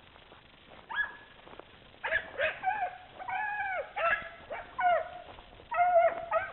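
Rabbit-hunting dogs yelping and baying in a string of about ten drawn-out calls that each rise and fall in pitch, one held longer than the rest near the middle.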